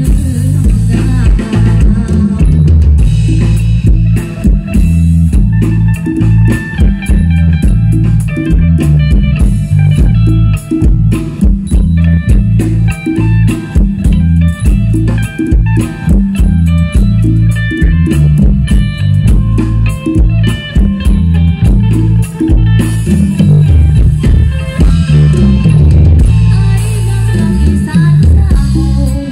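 Isan pong lang folk band playing lively dance music: a steady drum beat and bass line under a quick melody of struck and plucked notes.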